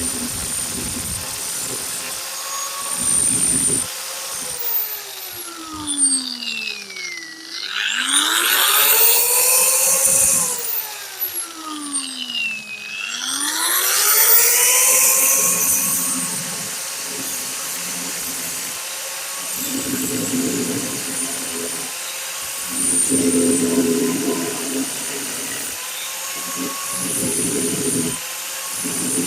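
Electric hand drill whining steadily while drilling a mounting hole in a steel base. Twice, about seven and thirteen seconds in, the motor slows sharply and speeds back up. Later come rough grinding stretches as the bit cuts into the metal.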